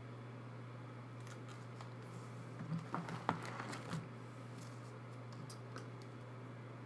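Faint crinkles and clicks of plastic binder sleeves being handled as a page is turned, busiest about three seconds in, over a steady low hum.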